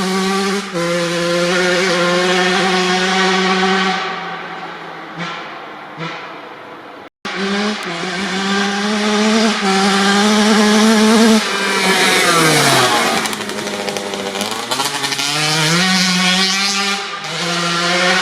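1997 Kawasaki KX80 single-cylinder 80cc two-stroke dirt bike engine ripping at wide-open throttle, with a high-pitched raspy note. It eases off about four seconds in, cuts out abruptly about seven seconds in, then climbs back up. The pitch drops steeply near twelve seconds, rises again, and dips once more near the end.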